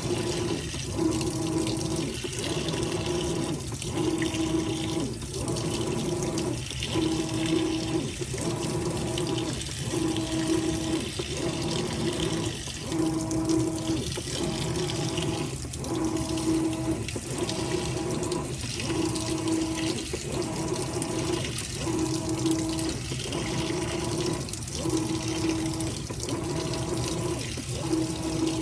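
Water pouring into the tub of a Whirlpool Cabrio top-load washer as it fills, over a motor hum that breaks off and restarts about once a second as the wash action turns the load back and forth.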